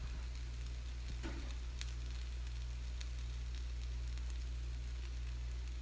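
Pancake batter sizzling faintly on a hot griddle, over a steady low hum, with a few faint ticks.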